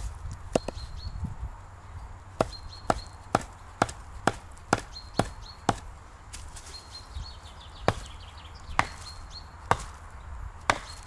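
Chopping strikes of a hand tool into wood on a stump, sharp and regular at about two a second, then after a short pause slowing to about one a second.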